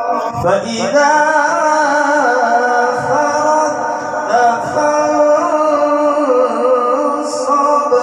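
A man's voice reciting the Qur'an in the melodic tilawat style over a microphone, sliding up into long held notes that waver and turn ornamentally.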